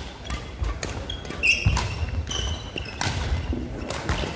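Badminton rally: sharp racket strikes on the shuttlecock, with court shoes squeaking briefly on the wooden floor and thudding footfalls between the hits.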